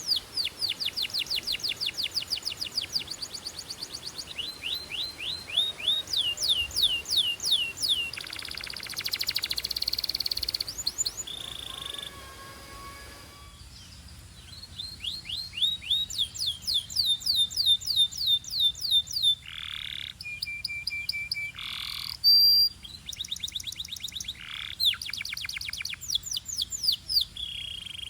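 Belgian canary singing: fast trills of repeated high, downward-sweeping notes, changing speed from phrase to phrase. A buzzy rolling passage comes about a third of the way in, then a short pause and a few brief held whistles.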